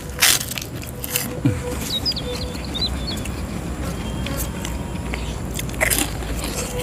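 A man eating a jumbo beef meatball in chilli sauce: mouth noises of chewing, with three short, louder eating sounds about a quarter second in, about a second in, and near the end.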